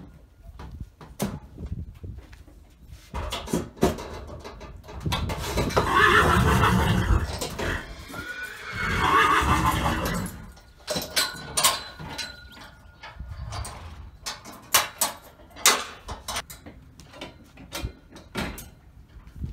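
Horses whinnying twice, long loud calls about five and nine seconds in: stablemates calling to a horse as it is loaded to leave. Around them, a run of sharp knocks from hooves and fittings in the horse lorry.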